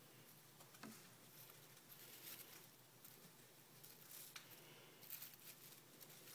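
Near silence with a few faint, scattered light ticks and rustles from an agouti.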